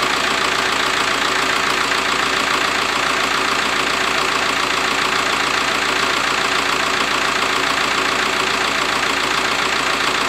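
VW T5 Transporter's 1.9 TDI four-cylinder diesel idling steadily, heard close up with the bonnet open. It runs with a light tapping, which the mechanic puts down to the hydraulic lifters still filling with oil after the cylinder head refit.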